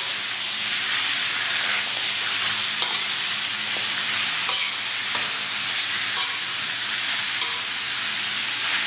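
Pork rib pieces sizzling in a hot wok, stir-fried with a metal spatula that scrapes through them, with a few short clinks of the spatula against the pan.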